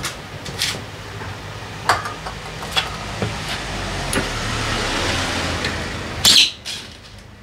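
Workshop noise of a mechanic working on a scooter: scattered clicks and knocks of tools and parts being handled, over a steady hum that swells in the middle. About six seconds in comes a short, sharp hiss, the loudest sound.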